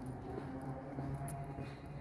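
Footsteps of a person walking, a step a little more often than every half second, over a steady low hum.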